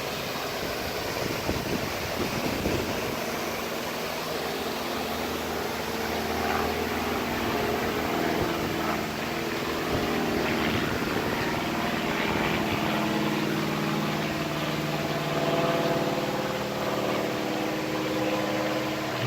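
Water running steadily in a small landscaped stream. A low engine hum from traffic or an aircraft rises over it from a few seconds in and grows toward the end.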